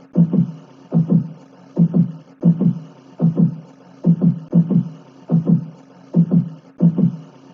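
Heartbeat sound effect: a steady lub-dub of paired low thumps, about nine double beats, a little faster than one a second.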